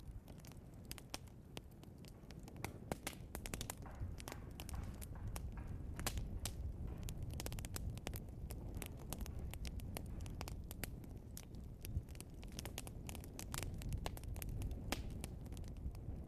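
Log fire burning, with dense irregular crackling and popping over a low, steady rumble of flames.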